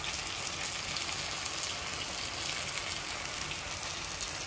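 Fish curry with fried fish and potatoes sizzling steadily in a frying pan, with fine crackling, just after the heat has been turned off.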